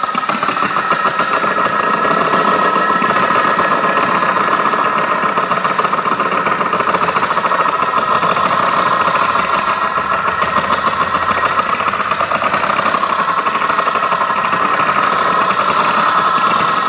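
Loud, throbbing electronic noise: a dense, steady drone with a rapid, even pulse and a strong buzzing band in the middle range.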